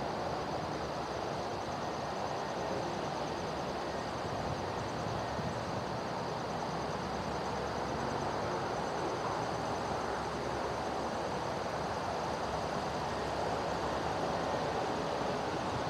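Two EMD SD40-3 diesel locomotives (16-cylinder two-stroke engines) working hard at low speed under a heavy train of 140-plus cars: a steady distant drone that grows slightly louder near the end. Insects chirr steadily in the background.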